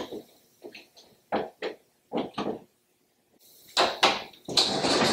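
Hollow-core bifold closet doors being pulled open and shut by a new bar handle: a string of short knocks and clacks from the panels and hinges, louder and busier near the end.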